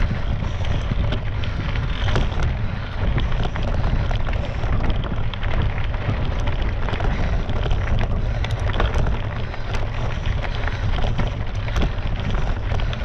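Wind buffeting a GoPro's microphone during a mountain-bike ride, a steady low rumble, over a constant rattle of many small clicks from the tyres and bike on a rough dirt track.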